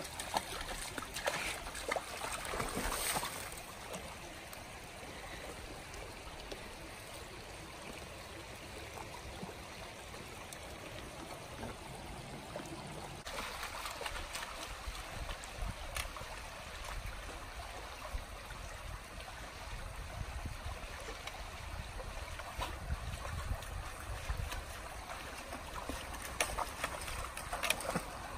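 Shallow rocky creek running over stones, a steady babble and trickle. A dog wading in the shallows adds louder, uneven splashing in the first few seconds and again near the end.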